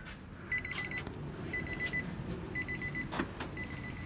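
2002 Infiniti i35's warning chime beeping: a quick burst of high, rapid beeps about once a second, four times. Near the end there are a couple of soft knocks.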